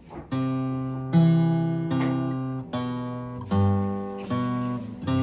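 Acoustic guitar playing a slow melody over chords, a new note or chord struck about every 0.8 s and left to ring.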